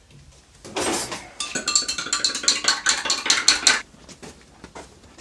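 A short burst of noise about a second in, then rapid metallic clinking and clattering for about two and a half seconds that stops abruptly.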